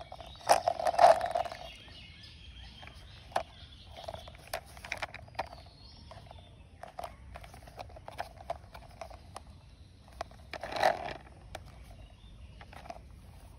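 A plastic toy motorbike being handled: scattered light clicks and knocks of hard plastic, with two short louder scraping bursts, one about a second in and one near the end.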